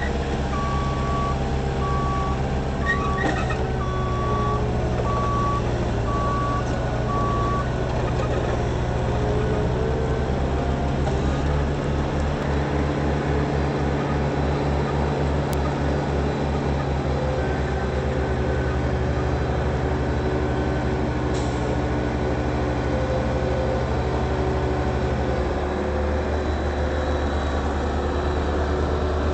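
Diesel engine of a Moffett truck-mounted forklift running steadily under way, with a reversing alarm beeping at an even pace for the first seven seconds or so. The engine note changes near the end.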